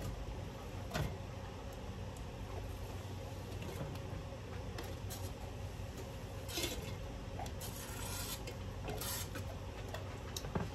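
Chopped onions being scraped off a cutting board into a pot of olive oil: steady scraping and rubbing, with a few light knocks.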